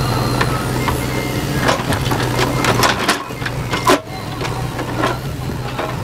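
JCB 3DX backhoe loader's diesel engine running steadily under load while its bucket pushes big stones, which knock and grind against each other in a string of sharp cracks, the loudest about four seconds in.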